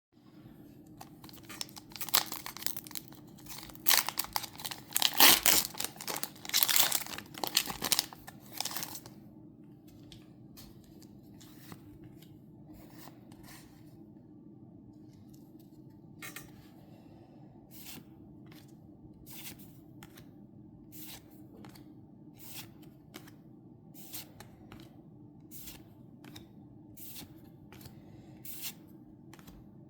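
Foil Pokémon booster pack wrapper crinkling and being torn open for about seven seconds, then trading cards being flicked through one at a time, a short soft snap about every second and a half.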